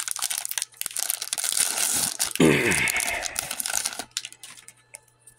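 Foil trading-card pack wrapper crinkling and tearing as it is handled and ripped open, loudest about two and a half seconds in, stopping about four seconds in.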